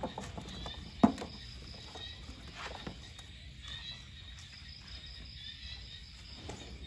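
A sharp thump about a second in as a plastic basket of bananas is set down on the ground, and a softer knock a couple of seconds later, over steady insect chirping.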